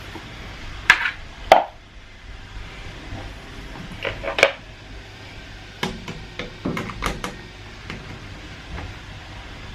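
Scattered clicks and knocks of a washing machine's drain hose and plastic pump parts being handled and turned, in small groups about a second in, around four and a half seconds in, and again between six and seven seconds in.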